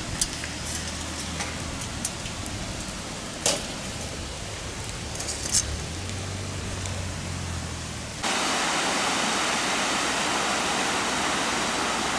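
Quiet outdoor ambience with a few sharp clicks and a faint low hum, then, about eight seconds in, a sudden change to the steady rush of water cascading down a stepped stone weir.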